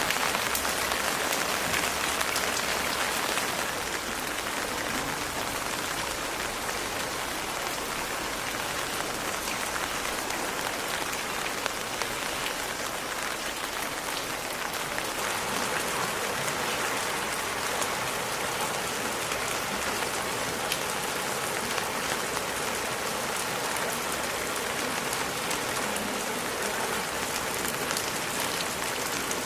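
Steady rain falling, a dense even hiss of many drops striking a surface, slightly heavier for the first few seconds.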